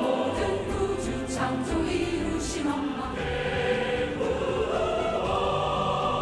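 A large choir singing a praise song together, holding sustained notes.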